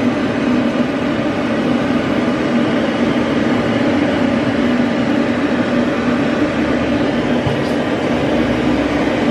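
Hose-fed pet grooming blow dryer running steadily: an even rush of air over a constant motor hum, blowing through a puppy's coat.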